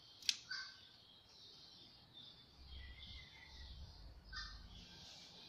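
Faint birds chirping in the background, with a sharp click about a third of a second in and a smaller one near four and a half seconds as the diesel injection pump's parts are handled.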